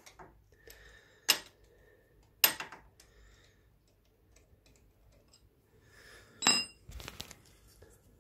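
Hand tools and a metal plug clinking and knocking against a motorcycle's transmission case as the transmission fill plug and dipstick are removed: two sharp clicks about a second and two and a half seconds in, then a louder clink that rings briefly about six and a half seconds in, with another knock right after.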